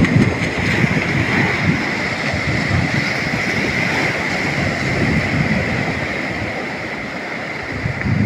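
Sea waves washing onto a beach in a steady rush, with wind gusting on the microphone in low rumbles.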